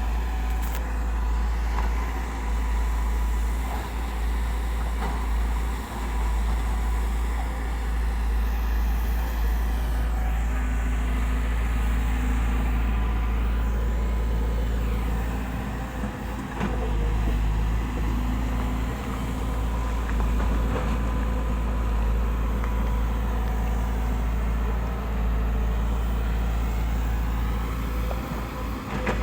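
A motor vehicle engine running steadily under a constant deep rumble.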